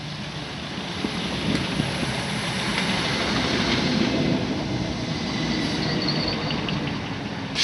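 Electric multiple unit running along the platform close by: a steady rumble and rush of wheels on the rails that grows louder, with a faint high squeal about halfway through. A sudden burst of noise comes at the very end.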